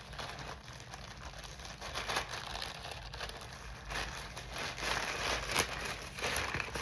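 Parcel packaging rustling and crinkling irregularly as it is opened and handled, with louder crinkles in the second half.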